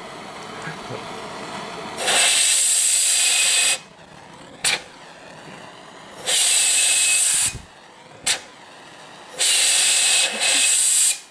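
Three blasts of compressed air from a blow-gun nozzle hissing into a mason jar pulse jet, blowing in oxygen to get its nitro RC fuel to fire. A short sharp pop follows each of the first two blasts.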